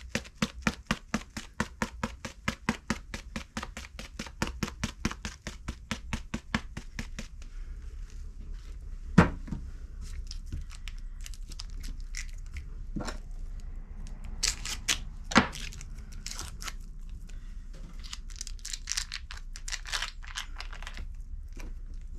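Dry ranch seasoning shaken from a plastic canister onto chicken breasts in a slow cooker: a quick rattle of about five shakes a second for some seven seconds. Then two sharp knocks and the crinkling of a foil wrapper being peeled off a block of cream cheese.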